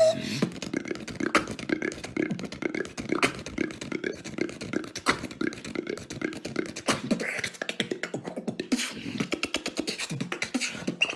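Beatboxing: one beatboxer performing a freestyle beat, a fast, dense rhythm of vocal kick, snare and hi-hat sounds with pitched bass sounds underneath.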